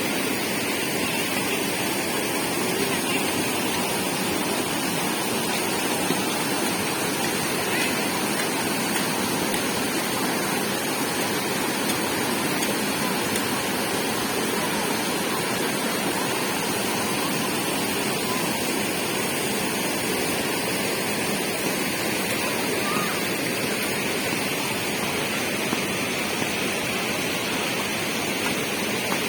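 Tamirabharani River water rushing steadily, an even noise without any break.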